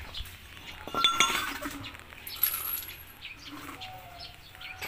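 A few light metallic clinks with a short ring about a second in, followed by softer handling noise and faint brief tones.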